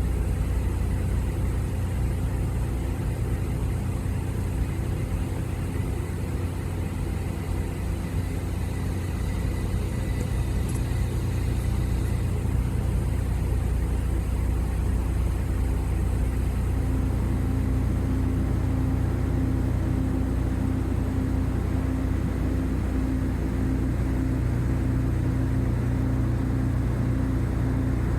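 Steady low engine drone with a constant hum; one tone in it grows stronger about two-thirds of the way through.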